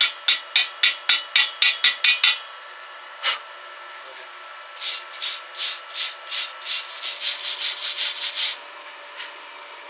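Quick back-and-forth hand scraping strokes on metal, about four a second for the first two seconds. A single stroke follows, then a second run of about ten strokes that quickens toward the end, and one last stroke near the end.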